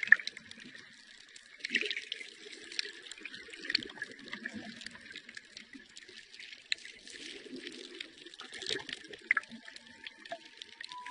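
Water sounds with many scattered crackles and clicks. Near the end, a single drawn-out tone begins and slowly rises.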